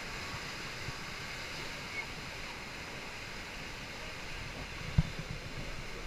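Steady running noise of a river-rapids raft being carried up the ride's conveyor lift, with a single knock about five seconds in.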